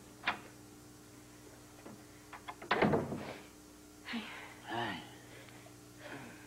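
A soft thud about three seconds in, then a woman's short laugh and a quiet 'hi', with a few faint clicks of glassware before.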